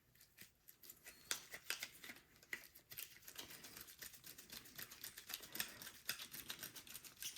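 Faint, rapid little metallic clicks and scrapes of a small carburetor idle set screw being worked and threaded back into the carburetor body by hand.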